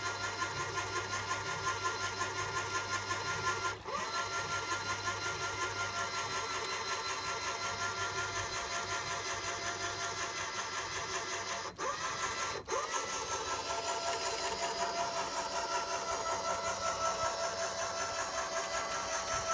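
An engine running steadily at idle with a fast, even flutter. The sound drops out briefly about four seconds in and twice around twelve seconds, picking straight back up each time.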